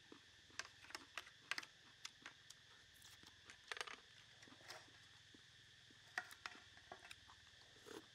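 Quiet eating sounds: irregular small clicks and smacks of chewing, with chopsticks and a spoon tapping on the plate. Behind them is a faint steady high hiss.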